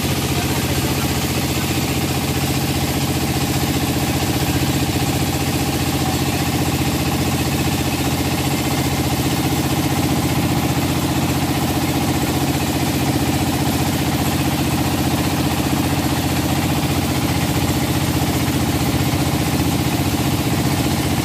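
Engine of a wooden river motorboat running steadily at an even pitch, heard from aboard the boat.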